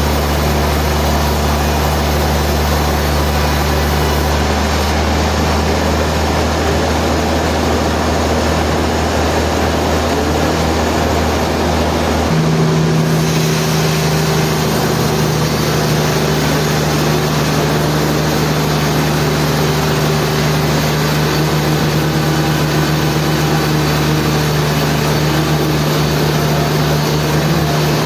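Sawmill machinery running steadily with a loud, constant hum. Its low drone shifts up in pitch about twelve seconds in.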